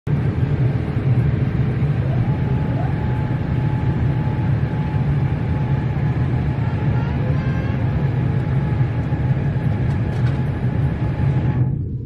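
Steady low rumble of airliner cabin noise in flight: jet engine and airflow noise heard from a window seat. A faint steady whine joins about two seconds in, and the upper hiss fades just before the end.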